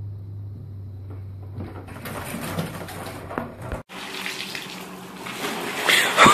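Running, splashing water, broken by a sudden cut about four seconds in, with a louder sudden sound near the end.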